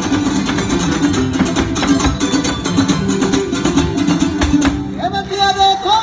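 A son jarocho ensemble of harps, jaranas and requinto jarocho plays in a fast strummed rhythm. A singer comes in near the end.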